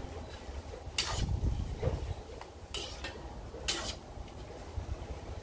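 Metal spatula scraping and clinking against a wok while stirring pork rinds in hot oil during their second frying. A few sharp scrapes sound over a low steady rumble.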